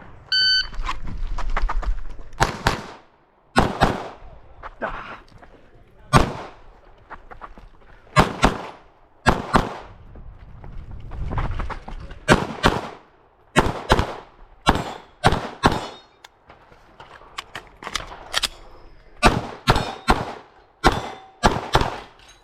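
A shot timer's start beep, then a 9mm Glock pistol fired through a practical shooting stage: about twenty sharp shots, mostly in quick pairs, with short pauses between groups as the shooter moves between targets.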